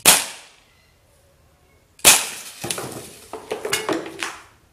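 Two sharp CO2 air pistol shots about two seconds apart. The second shot hits its target and is followed by about two seconds of clattering as a beer can, a plastic bottle and other small items are knocked over and tumble.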